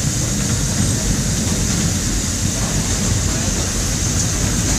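Steady low rumble of a train rolling slowly while shunting.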